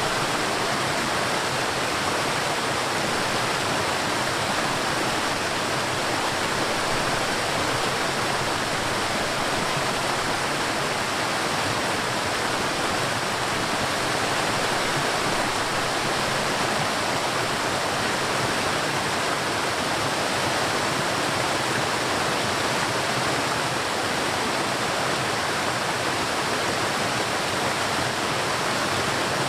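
River water flowing and rushing over rocks in a steady, even stream.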